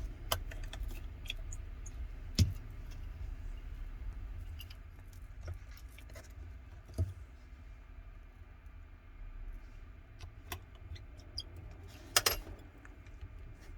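Small sharp clicks and taps of a precision screwdriver and tiny screws being fitted into an iPhone 11 Pro's internal metal plates: the sharpest about two seconds in and seven seconds in, with a quick double click near the end, over a low steady hum.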